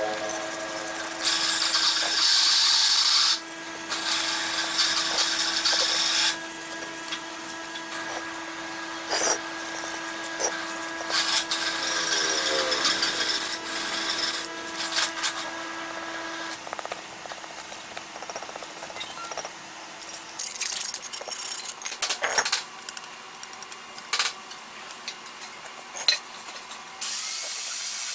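Metal hand tools and compressor parts clinking and scraping. Several harsh rasping bursts of a couple of seconds each stand out, and a steady hum stops about two-thirds of the way through.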